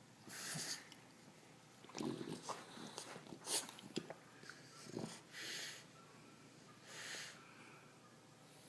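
A sleeping pet snoring: hissing breaths every few seconds, with a run of short snorts and snuffles in the middle.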